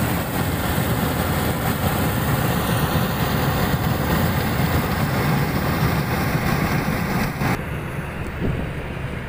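Old rice combine harvester's engine running steadily under load as the machine cuts through standing rice; its aged engine is what the owner calls 'panting' from age. About three-quarters of the way through, the sound suddenly turns duller and a little quieter.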